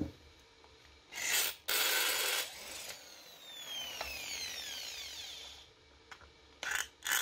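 A power drill boring into a metal engine cover in short bursts. After the second burst the drill's whine falls away as the motor spins down, and a couple more short bursts come near the end.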